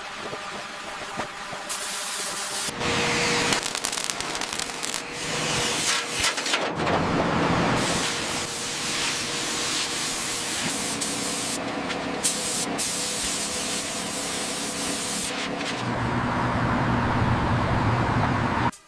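Hissing, spray-like noise that changes character every few seconds, with a low hum joining beneath it near the end.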